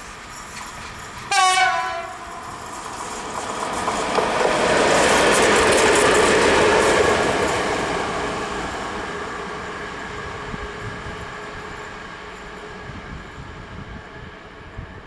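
ET42 two-section electric locomotive running light: one short horn blast with a slight drop in pitch at its end about a second in, then the rumble and whine of the locomotive passing close, loudest around six seconds in and fading as it runs away.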